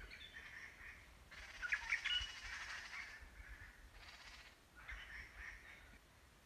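Birds chirping and calling outdoors, with a quick cluster of short chirps about two seconds in.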